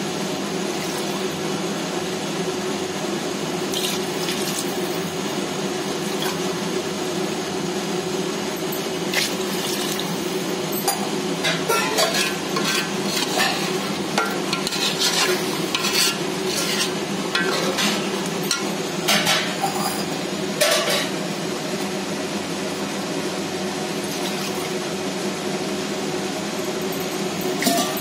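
Water being poured glass by glass into a steel pot of hot chicken masala: a steady sizzling hiss, with clusters of sharp clinks as the glass knocks against the pot.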